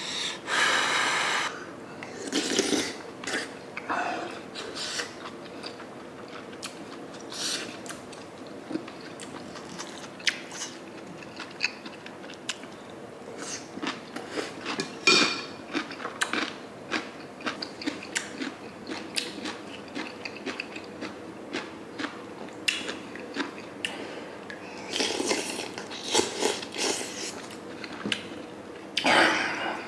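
Close-miked eating sounds: a man chewing and biting meat from a stone pot of sundae gukbap (Korean blood-sausage soup), with many wet clicks and smacks. A few longer airy bursts come at the start and again near the end.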